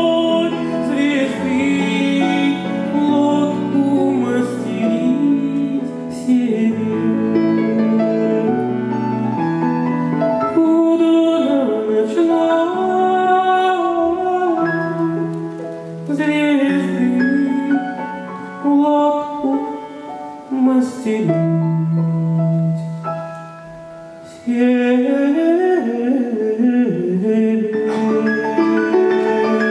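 A man singing into a microphone with grand piano accompaniment. The music softens for a few seconds past the middle, then swells back to full strength.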